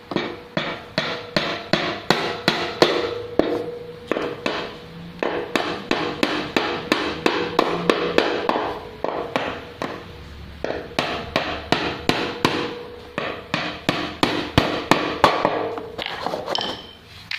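Hammer striking the metal foot pedal and its mounting rails on an industrial sewing machine stand in quick repeated blows, about three a second with a couple of short pauses, each knock leaving a metallic ring.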